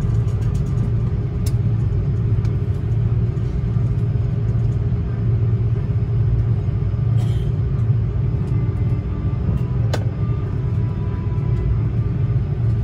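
Cabin noise of an Airbus A330-300 taxiing slowly after landing: a steady low rumble from its engines and wheels, with a couple of faint clicks.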